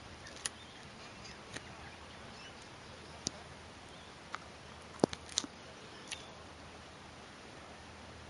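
Quiet outdoor ambience: faint bird chirps over a steady background hiss, with a few sharp clicks scattered through, the loudest about five seconds in.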